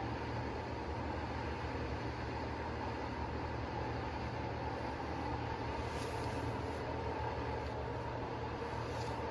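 Portable line boring and bore welding machine running steadily, with a low hum and a faint constant higher tone.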